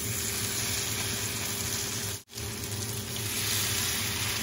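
Hot oil sizzling steadily as pasta-and-vegetable fritters shallow-fry in a nonstick pan, with a fresh spoonful of the mixture just added. The sizzle drops out briefly a little over two seconds in, then resumes a little brighter.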